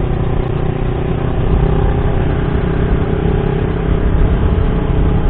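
Yamaha YZF-R25 parallel-twin engine running steadily at cruising speed, with wind rushing over the microphone.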